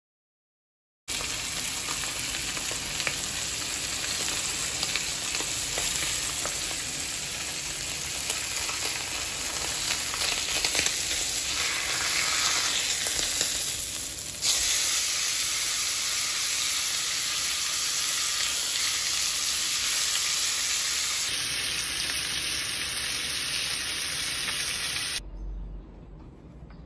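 Steak, sliced onions and mushrooms sizzling on a hot enamelled cast-iron grill pan: a steady, loud frying hiss that starts about a second in, jumps in level at cuts around the middle, and drops away a couple of seconds before the end.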